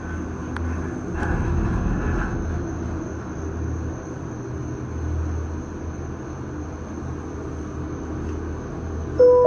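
Low, uneven rumble inside a moving Disney Skyliner gondola cabin, with a faint steady high whine. Near the end, a few clear musical tones begin.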